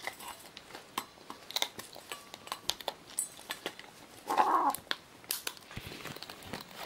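Scarlet macaw feeding from small bowls: scattered clicks and taps of beak and seeds against the bowls, with one short harsh call about four seconds in.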